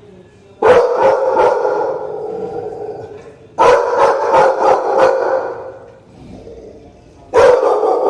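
Two American Pit Bull Terriers barking in three bursts of rapid barks, about three seconds apart.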